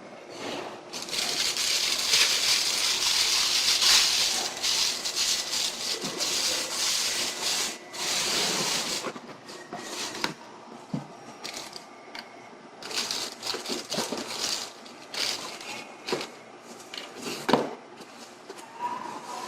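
Packaging being handled: irregular crinkling and rubbing of plastic wrap and packing material, with scattered sharp clicks and knocks, busiest in the first half.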